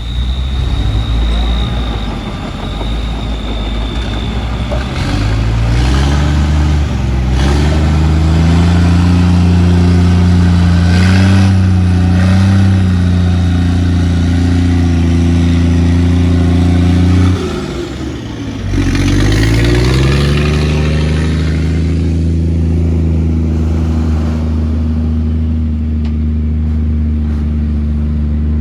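Diesel engine of a heavy earthmoving machine working under load: it revs up over a few seconds about a fifth of the way in and holds steady at high revs, drops sharply for about a second past the middle, then revs back up and runs steadily. A thin high steady whine sounds over the first few seconds.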